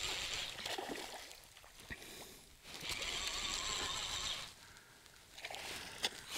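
Spinning surfcasting reel being wound in to bring in a hooked snapper, in spells of a second or so with pauses between as the rod is pumped. The winding is a steady whirr.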